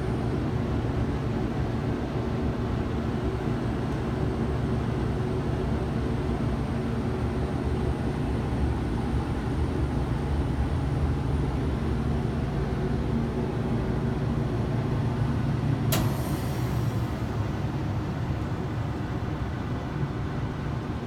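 Steady low rumble inside a moving Ferris wheel gondola as it travels round, with one sharp click about three-quarters of the way through.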